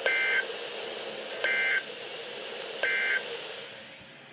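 Emergency Alert System end-of-message code: three short bursts of SAME digital data tones, warbling between two pitches, each a fraction of a second long and about a second and a half apart, over a faint steady hum.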